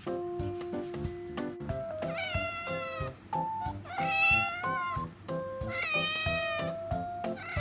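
A young mixed-breed house cat meowing: three drawn-out meows, each under a second, with a fourth starting near the end. Light background music with a regular beat plays under it.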